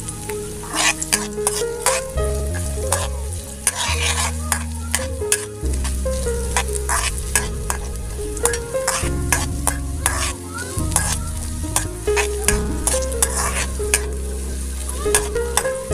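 Garlic, onion and ginger sautéing in hot oil in a wok, sizzling steadily, while a spatula stirs them and clicks and scrapes against the pan many times.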